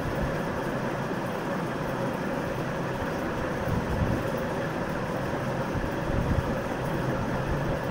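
Steady hum of a running machine, with a couple of soft knocks and scrapes about four and six seconds in as a plastic plate presses boiled rice level in a pan.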